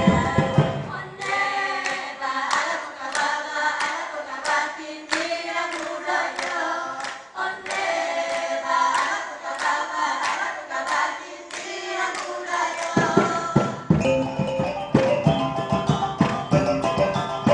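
Caklempong ensemble music: rows of small bronze gong-chimes struck in quick ringing notes, with a voice singing over them. The low drums drop out about a second in and come back with the full ensemble near the end.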